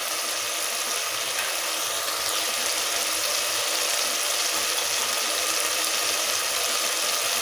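Onion-tomato masala sizzling steadily in an open pressure cooker on the stove, an even hiss with no stirring.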